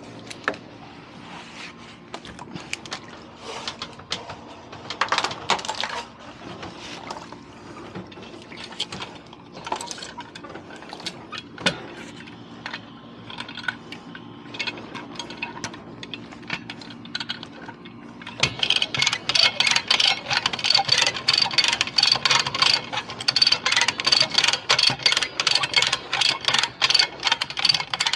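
Scattered clicks and knocks over a low steady hum, then from about two-thirds of the way through a fast, even run of sharp mechanical clicks, about five a second.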